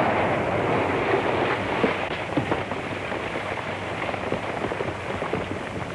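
Sound effect of an airplane crashing, on an old film soundtrack: a dense crackling, rushing noise with scattered clatters that slowly fades.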